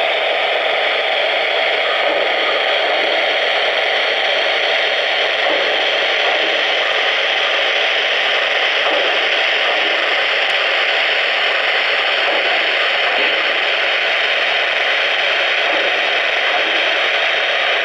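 Steady, even hiss from the sound system of a Lionel O-scale New York Central J1e Hudson steam locomotive, the steam-hiss effect of the model standing at rest.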